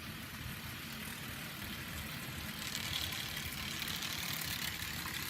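Model railway locomotive running along the track: the small electric motor's steady hum with the wheels rumbling on the rails, getting a little louder about halfway through.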